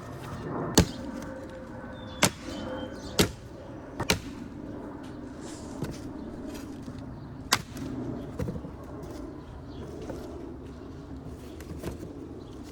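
Five sharp knocks at irregular intervals, the loudest about a second in, over a steady low background.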